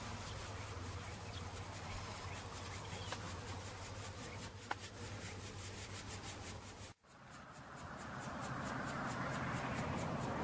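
Faint rubbing and handling noise from a handheld camcorder's microphone over a low steady hum. It cuts out for an instant about seven seconds in, then a scratchier hiss swells.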